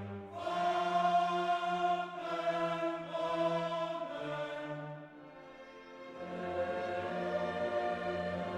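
Background choral and orchestral music of long held chords, dropping softer for about a second past the middle before swelling again.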